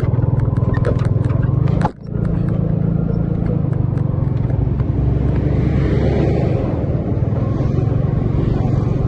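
Steady low rumble of a moving road vehicle's engine and tyres, heard from on board, with a brief dropout about two seconds in and a swell of road hiss a few seconds later.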